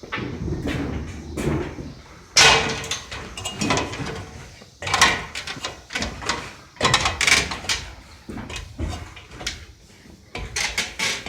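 Irregular scraping, rubbing and knocking in a run of loud bursts, like things being handled or moved about.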